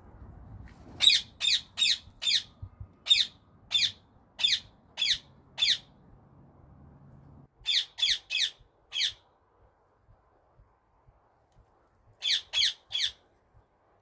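Indian ringneck parakeet squawking: a string of short, harsh, high calls in three bursts, about nine in quick succession, then four, then three.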